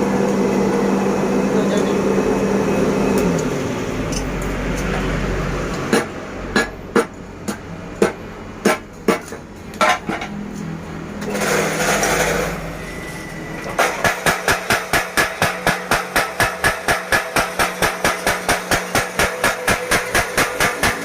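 Blacksmith's mechanical power hammer at work. A steady machine hum drops away after about three seconds. A handful of separate blows follow, then from about two-thirds of the way in comes a regular run of hammer blows at roughly three a second.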